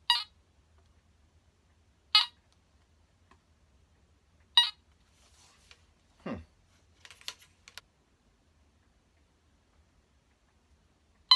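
Teknetics Delta 4000 metal detector beeping as it is switched on and cuts out again: four short, sharp beeps, the first three about two seconds apart, with a downward-sliding tone and a few light clicks partway through. It won't stay on because it is running on cheap non-alkaline batteries.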